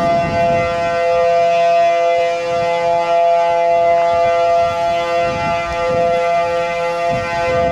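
Tsunami warning siren, a World War II air raid siren now used in the Pacific tsunami warning system, sounding a loud, steady chord that holds the same pitch throughout, as an evacuation alert.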